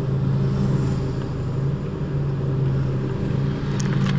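Car running on the road, heard from inside the cabin: a steady low engine and road drone.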